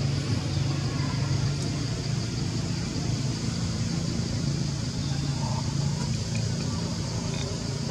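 Steady low hum of a motor running, over even outdoor background noise.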